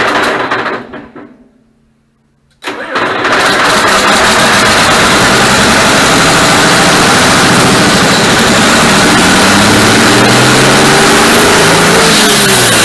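Freshly rebuilt John Deere 4455 six-cylinder turbo diesel running, then shut off and winding down to a stop. After a moment of silence it is restarted, catches at once and runs loud and steady. Near the end its pitch rises and then drops back.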